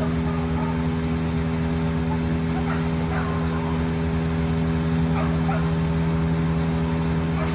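Steady drone of a running engine, likely tree-trimming machinery, holding one pitch throughout. Over it a dog gives short, high, wavering whines and whimpers.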